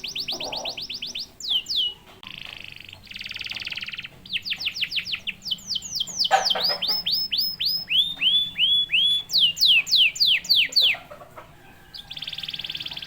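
Domestic canary singing a long song phrase: fast rolling trills, then series of quickly repeated notes that sweep downward in pitch, with short pauses between the tours.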